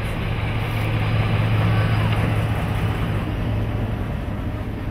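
Class 14 diesel-hydraulic locomotive D9526 passing close by, its Paxman V6 diesel engine giving a steady low drone over a broad rumble. The sound is loudest about one to two seconds in, then eases as the train moves away.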